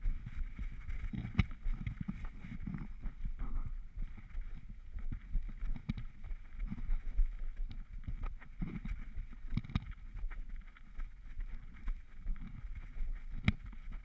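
A dog tracking through grass, heard from a camera on its own harness: an uneven run of soft low thumps from its footfalls, sniffing and body movement, with a few sharp clicks.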